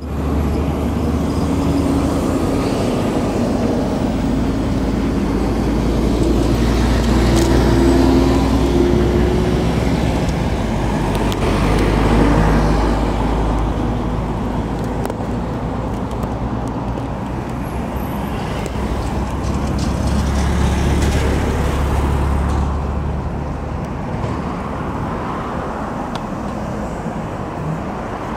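Road traffic on a city street: motor vehicles passing close by, swelling and fading several times as they go past, over a steady low rumble.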